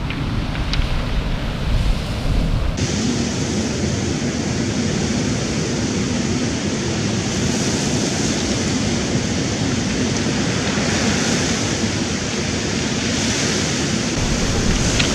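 Surf washing up a pebble beach, a steady hiss of water running over and through the stones. For the first few seconds wind buffets the microphone with a low rumble, and it drops away suddenly about three seconds in.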